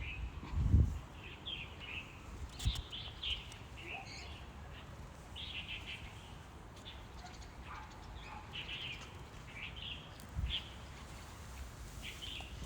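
Birds chirping in short, repeated calls, with a few dull low thumps, the loudest about a second in.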